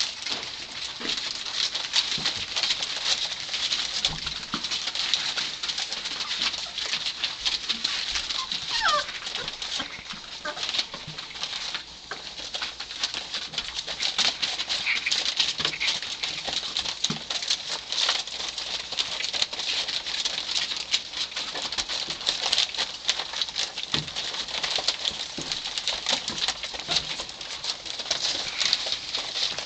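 Young Labrador retriever puppies squeaking and whimpering as they wrestle, with a falling squeal about nine seconds in, over a constant crackle of newspaper under their paws.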